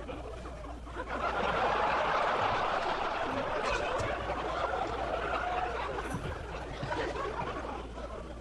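Studio audience laughing: a burst of laughter that breaks out about a second in, holds, and fades near the end.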